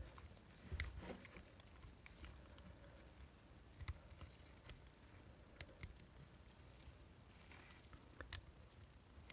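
Near silence broken by faint, scattered clicks and small scrapes from side cutters working at a nickel-metal-hydride cell's steel casing to free its tightly jammed electrode roll.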